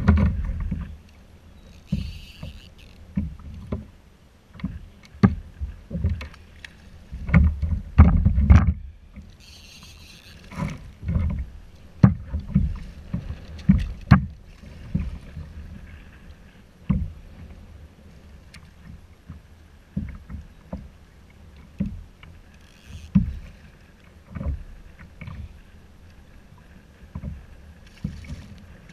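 Choppy lake water slapping and knocking against a kayak's hull in irregular thumps, with a few short bursts of splashing, one of them near the end as a hooked fish thrashes at the surface beside the boat.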